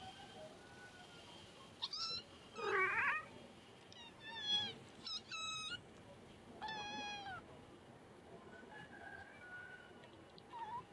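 Kittens mewing: about half a dozen short, high-pitched mews in quick succession, one of them wavering, followed by a few fainter ones.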